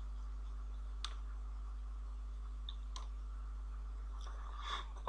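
A few separate computer keyboard key presses, short sharp clicks about a second and three seconds in, over a steady low electrical hum.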